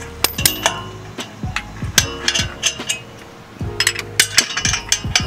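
Irregular metallic clicks and knocks of hand tools and bolts against a car's exhaust pipe as its bolts are tightened from underneath the car.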